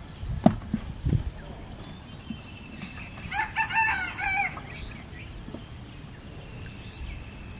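A rooster crowing once, a single wavering call of just over a second, about three seconds in. Two short dull thumps come near the start.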